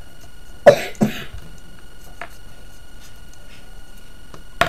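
A person coughing twice in quick succession, followed near the end by a single sharp click.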